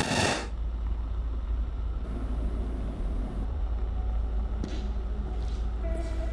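A short, loud burst of noise, then a steady low rumble. A few held tones come in near the end.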